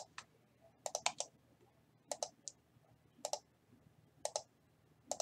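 Computer mouse and keyboard clicks in short pairs and threes, about once a second, as a list is selected, copied and pasted into a spreadsheet.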